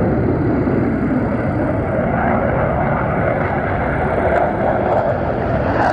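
McDonnell Douglas F-15C Eagle's twin Pratt & Whitney F100 turbofan engines at takeoff power through the takeoff roll and liftoff: loud, steady jet noise.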